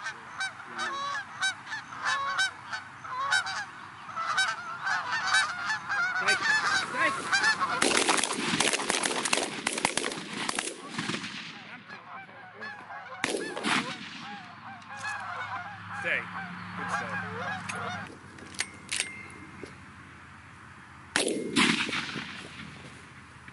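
Canada geese honking in a busy chorus as a flock comes in over decoys, densest and loudest about eight to eleven seconds in. Sharp shotgun blasts follow about thirteen seconds in and again near the end.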